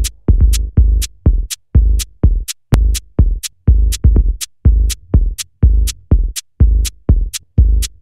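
Dub techno track playing: a steady four-on-the-floor drum-machine kick, a little over two beats a second, with a crisp hi-hat tick between each kick.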